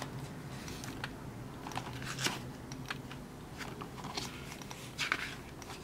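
Paper manuals and leaflets rustling and crinkling as they are handled and sorted, in scattered short crackles.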